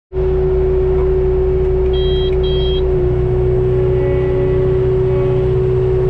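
Tractor engine running steadily, heard from inside the cab, with a constant whine over the motor hum. Two short high beeps sound about two seconds in. From about three seconds the engine note changes slightly as the loader attachment is raised.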